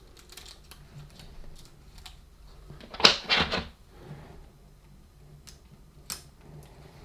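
Small clicks, scrapes and crinkles of hands working at a laptop's battery connector: insulating tape being peeled back and a plastic pry tool set against the connector, with a louder rustle about three seconds in.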